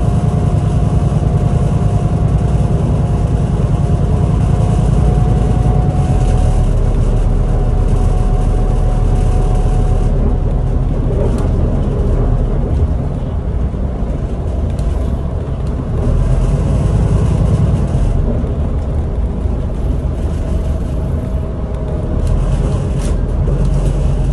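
Scania Citywide LFA city bus driving, heard from inside the passenger cabin: a steady engine drone and road rumble, with a faint thin whine that fades out about ten seconds in.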